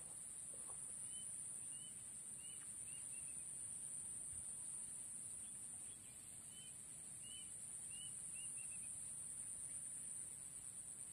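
Swamp ambience: a steady high-pitched insect drone, with a bird giving short chirping notes in two runs, and a faint low rumble underneath.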